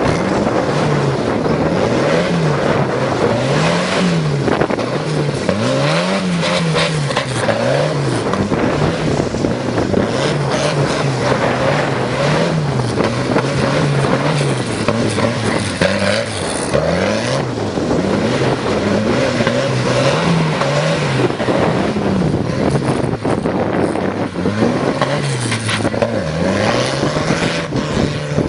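Turbocharged tractor engine revving up and down over and over, its pitch climbing and dropping every second or two as it is driven hard.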